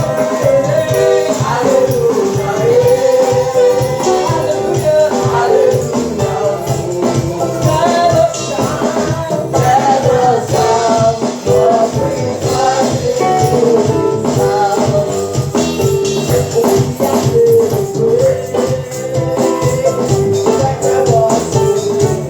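Live praise-and-worship music: singing voices over a band with rattling hand percussion keeping a steady beat.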